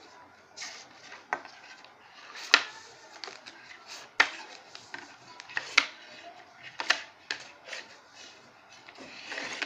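Plastic ruler tapping and scraping on a tabletop while pressing creases into folded printer paper: a series of sharp, irregular taps, with paper rustling that grows louder near the end.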